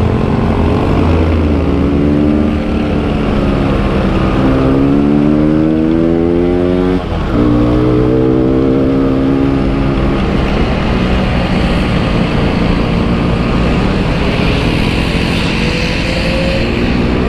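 Yamaha RX-King's two-stroke single-cylinder engine running under load, its pitch climbing as the bike accelerates. About seven seconds in the sound briefly drops as the rider shifts up a gear, then climbs again and holds steady.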